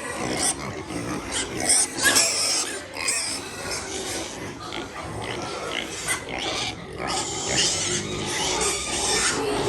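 Pigs calling: a run of uneven, noisy cries, loudest about two seconds in and again near the end.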